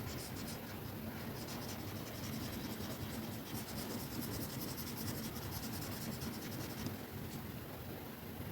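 Stylus pen scratching across a drawing tablet's screen in quick, repeated strokes, stopping about seven seconds in, over a steady background of low noise.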